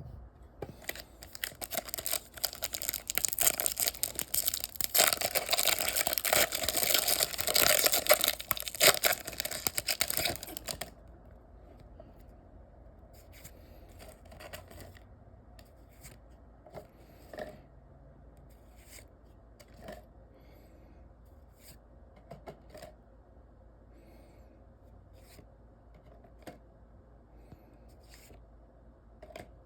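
Foil wrapper of a baseball card pack being torn open and crinkled, loud and dense for about the first ten seconds. After that, quieter scattered clicks and rustles of cards being handled and slid against each other.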